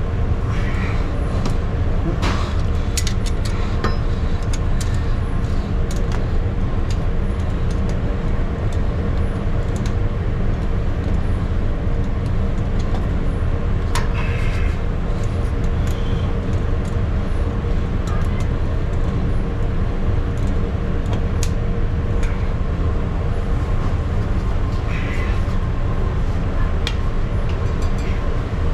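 Electric drain snake running steadily in a clogged drain line: a loud, constant motor drone and hum, with scattered light clicks and knocks.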